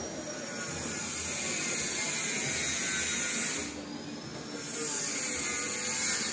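Wind gusting through trees in a high hiss that swells twice: for about three seconds, then, after a brief lull, for about two more.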